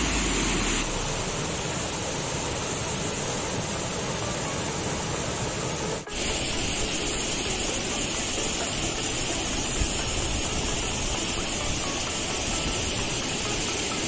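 Steady rushing of a rocky mountain stream tumbling over boulders in small cascades. The sound briefly drops out about halfway through and then resumes.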